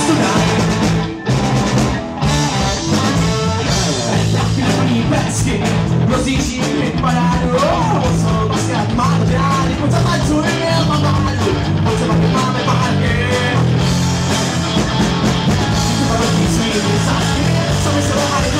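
Rock music with a drum kit, bass and electric guitar, and a voice singing over it.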